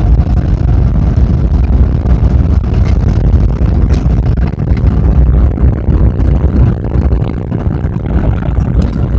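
Loud, steady low rumble in the cabin of a Boeing 777-300ER during its landing rollout: the engines' reverse thrust and the wheels running on the runway, easing slightly near the end.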